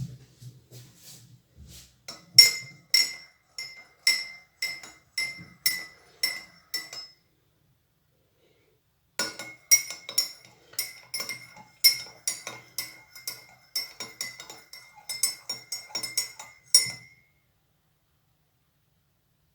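A metal teaspoon stirring tea in a cup, clinking against the side about twice a second, each clink leaving a short ringing note. The clinking pauses for about two seconds midway, then resumes a little faster.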